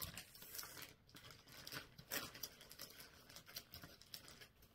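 Clear plastic pattern sleeves crinkling as they are handled and leafed through, in quick irregular crackles that are loudest about two seconds in.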